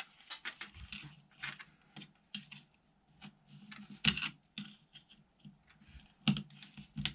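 Small screwdriver clicking and scraping on the screws and parts of a vintage Kyosho Ultima RC buggy chassis: irregular light taps and knocks, with a few louder ones about four and six seconds in.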